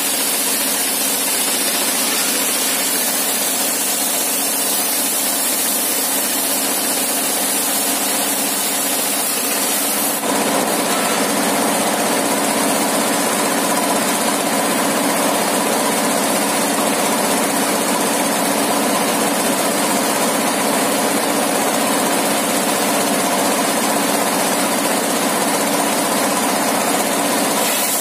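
A stationary engine drives a circular saw bench with a steady hum while its blade rips thin boards. The sound grows a little louder and fuller about ten seconds in.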